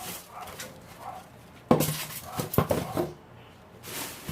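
Parts of a new samgyeopsal grill set clattering as they are handled and set down: a few sharp knocks, the loudest a little before halfway, followed by a quick cluster of smaller ones.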